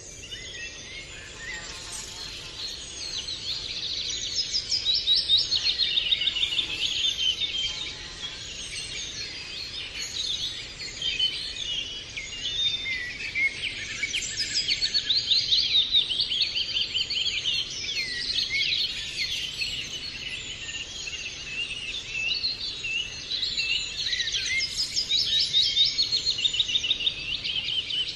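Many birds chirping and trilling at once, a dense, continuous chorus of quick overlapping calls that swells louder and fades back several times.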